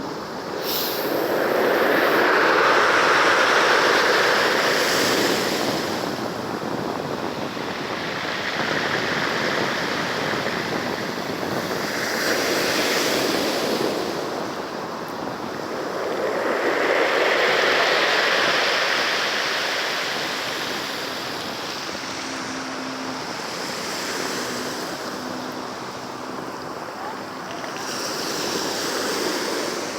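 Sea waves breaking and washing on a shore, swelling and fading in slow surges several seconds apart, the loudest a few seconds in.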